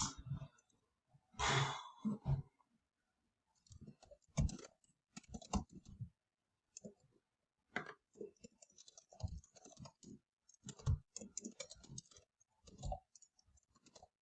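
Computer keyboard keystrokes, typed in irregular clusters with short pauses between them.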